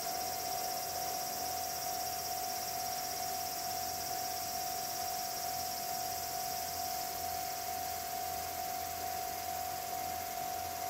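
Insects droning steadily in the trackside woods, a constant high buzz with a steady mid-pitched tone beneath it.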